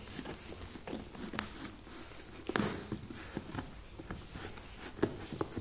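Scissors cutting and scraping along the packing tape of a plastic-film-wrapped cardboard box, with crinkling and irregular sharp clicks, the sharpest about two and a half seconds in.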